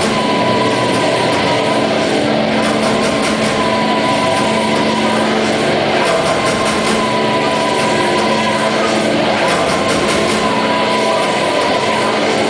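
Loud live drone music from electric guitar and keyboard or electronics: a dense, noisy, unbroken wash over a steady low held note, with a high held note that comes and goes every second or two.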